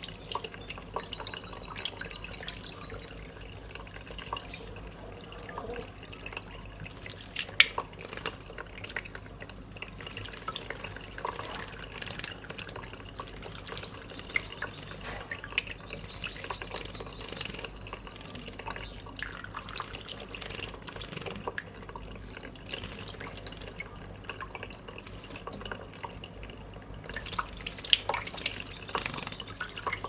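A thin stream of tap water running into wet cupped hands, with drips and sharp splashes as a European goldfinch bathes in the pooled water and flutters its wings. The loudest splashes come about seven and a half seconds in and again near the end.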